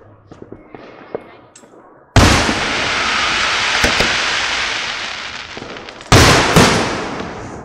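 Aerial fireworks going off: small pops at first, then a loud burst about two seconds in that trails off into a long rush of noise for several seconds, and two more bursts close together about six seconds in that fade away.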